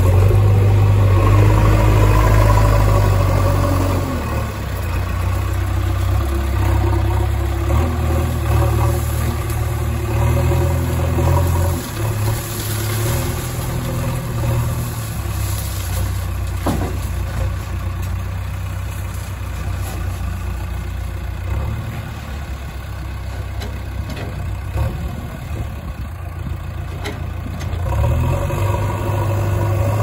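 Diesel engine of a JCB 3DX backhoe loader running, its note shifting several times as the loader drives up and raises its front bucket, with a Mahindra Arjun 555 tractor's diesel engine running alongside. Around the middle, small stones pour from the tipped bucket into the tractor's trailer.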